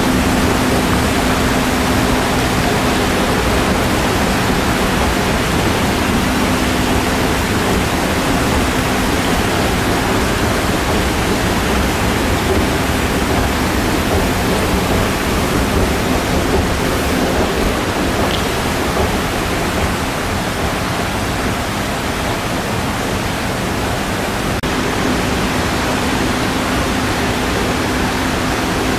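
Steady rushing room noise of a large terminal lobby. A low steady hum drops away about a third of the way through and comes back near the end.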